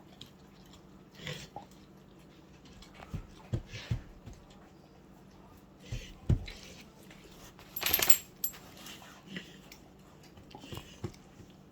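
A dog licking and chewing at a peanut-butter-filled chew toy: scattered knocks and clicks as the toy shifts and bumps about, with a brief, louder metallic clinking about eight seconds in.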